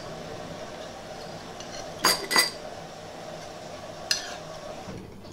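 Metal spoons clinking against soup bowls during eating: two quick clinks about two seconds in, then one more about four seconds in.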